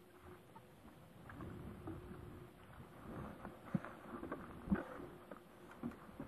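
Scattered light taps and knocks from handling a carbon fishing pole and tackle at the seat box, with two sharper knocks a few seconds in.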